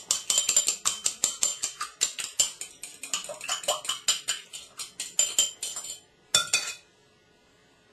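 A fork clinking quickly and unevenly against a dish, many sharp ringing clinks a second, stopping about six seconds in, with one short flurry of clinks just after.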